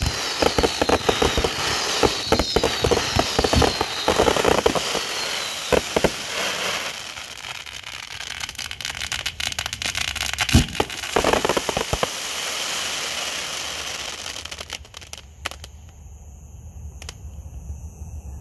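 Rapid crackling and popping, dense for the first several seconds, then thinning to scattered pops before fading out.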